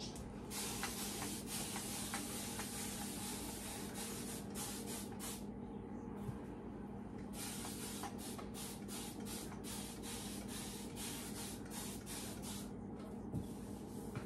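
Mr. Clean Clean Freak deep cleaning mist bottle spraying in many hissing bursts, some longer and many in quick succession, with short pauses between runs, over a steady low hum.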